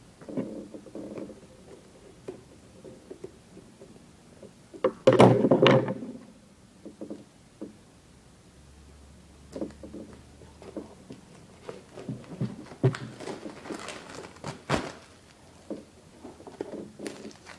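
Stiff plastic toy packaging being cut open with scissors and handled: scattered snips, clicks and knocks, with a loud crinkling rustle about five seconds in and a busier run of clicks and rustles near the end.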